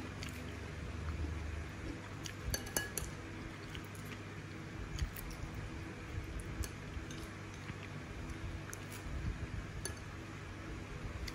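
Metal spoon clinking now and then against ceramic soup bowls as banana soup is spooned out and eaten, a few scattered clicks with a cluster about two and a half seconds in. A faint steady low hum lies underneath.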